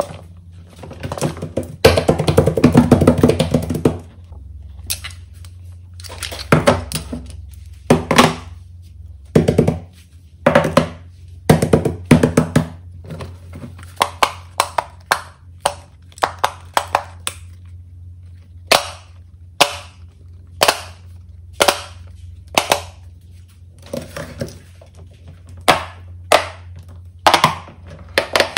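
Silicone push-pop bubble fidget toys being popped and handled by fingers: a series of short, sharp pops and thunks, single and in quick runs, with a dense stretch of rapid popping about two to four seconds in. A steady low hum runs underneath.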